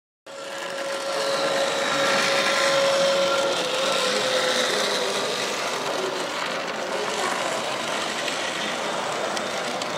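Model trains running on a layout: the whine of their small electric motors and the rumble of wheels on track, over background chatter, growing louder over the first couple of seconds.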